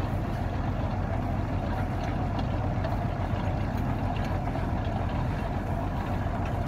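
Engine of a tubewell boring rig running steadily, a low, even drone.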